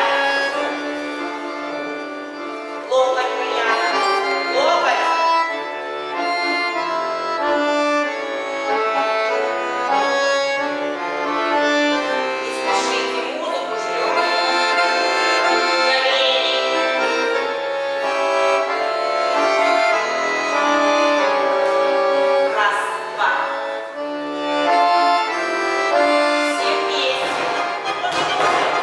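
Accordion playing a lively traditional folk tune with sustained chords and melody.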